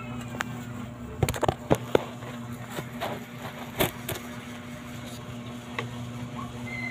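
A few sharp knocks and clicks, bunched about a second in, with single ones near the four-second mark and near the end, over a steady low hum.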